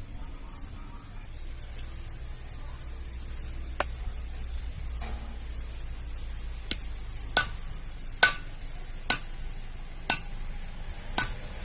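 Knife chopping on a board: seven sharp strikes, the first alone and the rest about a second apart, the loudest past the middle. Birds chirp faintly.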